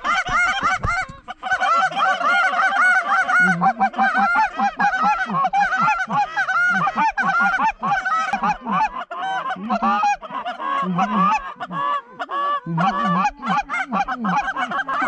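Canada goose calls blown by hunters: a fast, almost unbroken run of short honks and clucks, calling to turn a small flock of Canada geese back toward the decoys.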